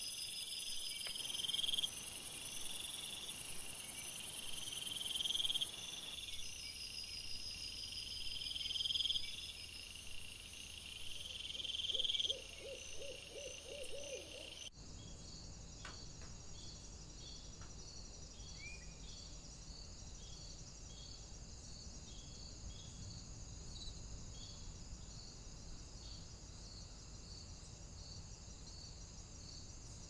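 Night-time insect chorus: a dense, steady high trilling with a chirp repeating about every two seconds, and a short rapid run of low notes a little before the middle. The sound changes abruptly to softer daytime woodland ambience, with repeated high bird chirps, a couple of faint taps and one rising call.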